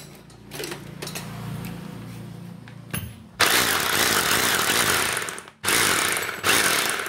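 Bosch 2-26 rotary hammer running free after a new rotor and gears were fitted. It starts at low speed, then runs at full speed from about halfway in, stopping briefly twice. It runs smooth, no longer harsh, a sign that the repair worked.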